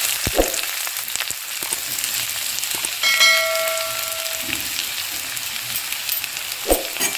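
Sliced onions sizzling as they start to fry in hot mustard oil in a kadai. About three seconds in, a metal plate rings briefly against the pan.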